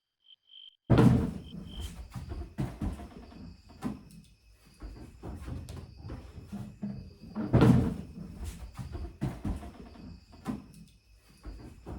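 Insect chirping in short, even pulses, cut off about a second in by a run of irregular knocks and thumps. The loudest thumps come right at the change and again a little past the middle.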